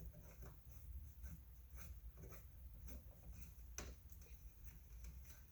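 Near silence with faint scattered small clicks and light scraping: a tiny T8 Torx screw being worked loose with a driver inside a car's door mirror housing.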